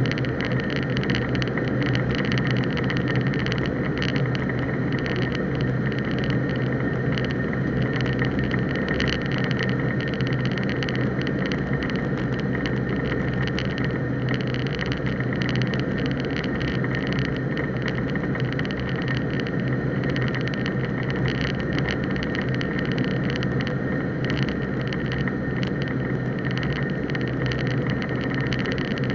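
Cessna 150's Continental O-200 four-cylinder engine and propeller running at a steady, unchanging speed, a constant drone over a wide rushing noise.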